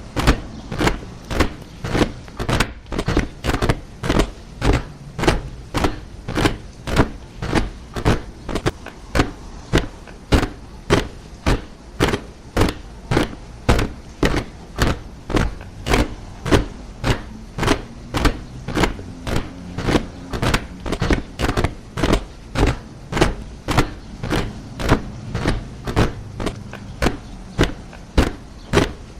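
A body of soldiers marching in step, boots striking the ground together in a steady rhythm of about two steps a second.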